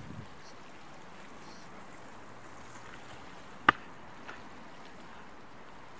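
Steady sea water and wind noise around a small boat, with one sharp knock a little past halfway through and a fainter one soon after.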